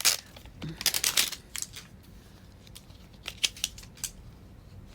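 Thin plastic wrapping being worked and torn off a toy surprise ball, crinkling and crackling in short irregular bursts, busiest in the first second and a half.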